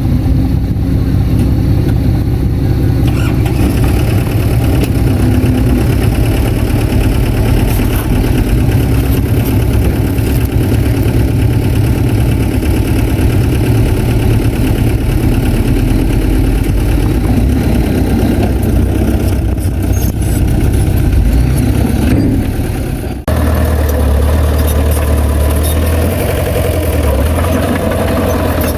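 Diesel engine of heavy earthmoving machinery running steadily under work. About three quarters of the way through the sound cuts abruptly to a lower, steadier engine sound.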